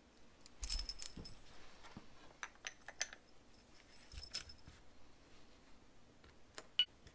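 Light metallic clinks, rattles and clicks of small metal parts as the battery-powered alarm padlock is handled. There is a cluster of jingling clinks about a second in, scattered clicks after it, and a sharp click near the end.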